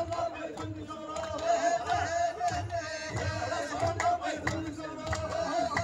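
A group of men chanting in unison over a held note, with rhythmic hand clapping and a low pulsing beat: Moroccan Amazigh folk group singing.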